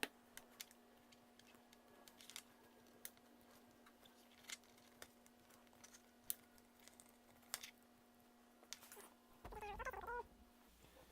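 Light clicks and taps of small parts being handled, over near silence with a faint steady hum. Near the end comes a short, high, wavering call.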